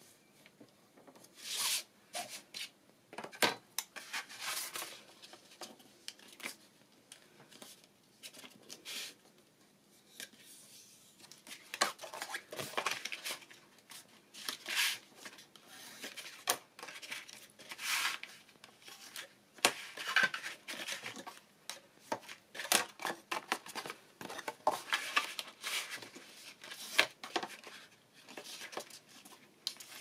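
Cardstock being folded along score lines and creased flat by hand: irregular rustling and scraping of card, sliding and pressed against the table.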